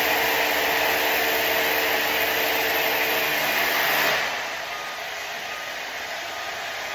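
A cordless DeWalt drill, mounted on a pole, runs under load drilling into a concrete ceiling. It stops about four seconds in, leaving a quieter steady hiss.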